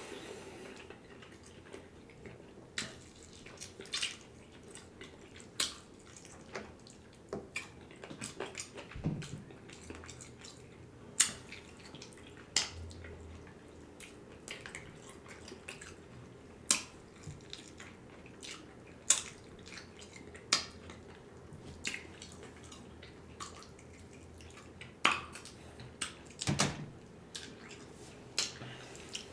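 Close-miked eating: wet mouth clicks and smacks as food is chewed, with now and then a utensil clinking against the dish. The clicks come irregularly, about one to two seconds apart.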